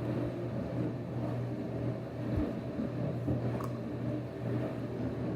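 Steady low mechanical hum, with a couple of faint small handling clicks.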